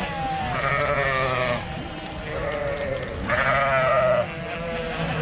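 A flock of sheep bleating, with several calls overlapping. Two loud, wavering bleats stand out: one about half a second in, lasting about a second, and another just after three seconds in.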